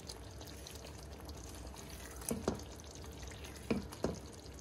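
Wooden spatula stirring thick kofta-and-potato curry in a pan, with four short knocks of the spatula against the pan, two about halfway through and two near the end. A steady low hum sits underneath.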